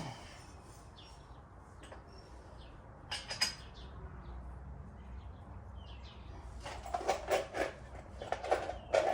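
Light metallic clicks and clinks of tie rod ends and hardware being handled and fitted onto a quad's steering: a couple about three seconds in and a quicker cluster near the end, over a low steady hum.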